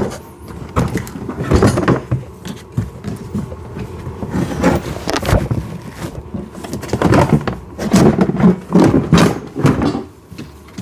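Hollow plastic knocks, scrapes and rattles from a kids' ride-on Jeep's plastic body being handled and turned back over.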